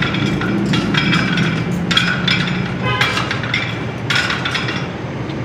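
Cable machine weight stack clinking and ringing with the repetitions, about five metallic clinks a second or so apart, over a steady low hum.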